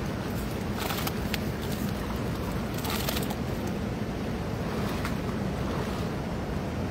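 Steady rushing of flowing river water, with a couple of short splashes, about one and three seconds in, as a cast net with fish is hauled out of the water.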